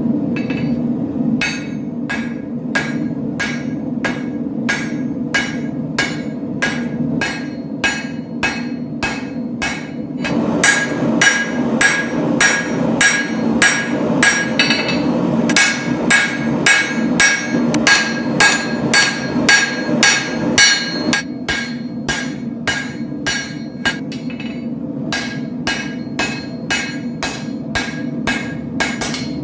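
Blacksmith's hand hammer forging hot steel on an anvil in steady rhythmic blows, about two to three a second, each with a short metallic ring, over a steady low hum. The blows come faster and louder for a stretch in the middle.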